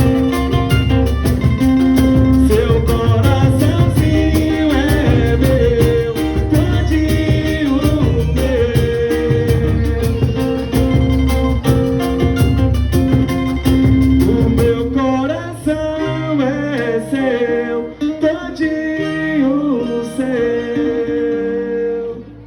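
Music: a song with a sung melody over band accompaniment. The heavy bass and drums drop out about 15 seconds in, leaving a lighter backing under the melody.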